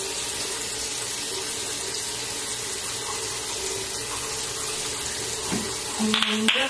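Water running steadily from a bathroom sink tap while hands scoop it onto the face. About six seconds in there is a brief louder burst with a short low hum.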